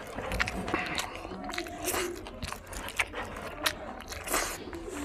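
Close-up wet chewing and mouth smacks while eating rice by hand, with many short sharp clicks, and fingers scraping and pressing rice on a metal tray.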